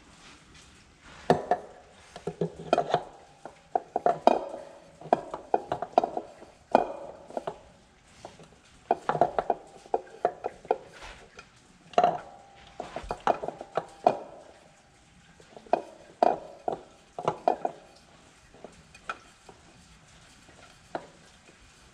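Metal parts and tools clinking and rattling in irregular bursts with short pauses, as an oil filter is handled and fitted on a tractor engine.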